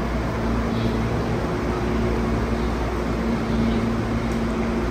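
Railway station platform ambience: a steady low hum and rumble with an unchanging droning tone running under it.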